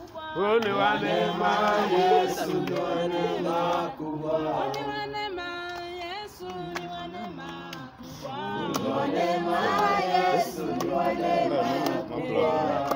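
A group of men's and women's voices singing together, a hymn sung in phrases with short breaks between them.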